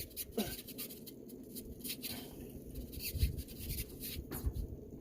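Scratchy clicks and scrapes of hands working a stiff valve on a tankless water heater's plumbing, with low rumbles of wind on the microphone.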